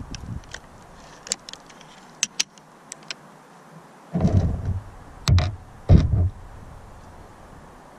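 Webley Eclipse .22 underlever air rifle being handled and reloaded between shots: a few light metallic clicks, then three dull thumps, about four to six seconds in.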